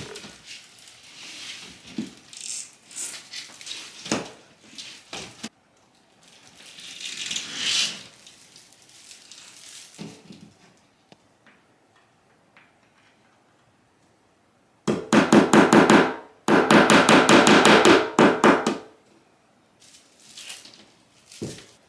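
Scattered knocks and rustling from handling the grass wall panels, then two loud bursts of a power tool's rapid rattle, one about a second long and one about two seconds long, as the heavy grass wall is fastened up.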